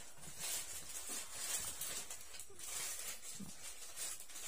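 Clear plastic bag rustling and crinkling faintly in short, irregular bursts as clothing is unwrapped from it.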